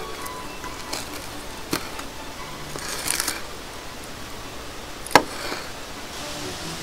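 Japanese kitchen knife slicing through a cooked porterhouse steak on a wooden cutting board: a few light clicks, a short crackling scrape about three seconds in, and a sharp knock of the blade against the board just after five seconds.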